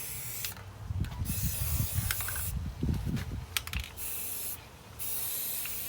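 Aerosol spray paint can hissing in four bursts with short gaps between, as red paint is sprayed on. Low bumps and rumble from handling run under the first half.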